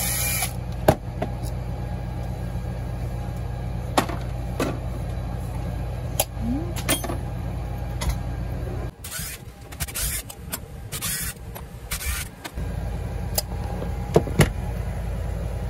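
Clicks and knocks of a Rochester Quadrajet carburetor's metal parts being handled and taken apart on a workbench, over a steady low hum. Around nine seconds in, the hum drops out for a few seconds while several short hissing bursts sound.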